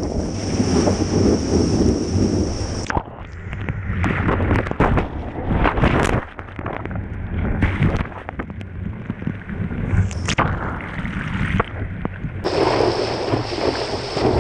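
Whitewater and wind rushing over a board-mounted action camera on a stand-up paddleboard riding a breaking wave. About three seconds in, the sound turns muffled, with scattered sharp splashes and knocks, as the camera is washed over by the wave. The open rush returns near the end.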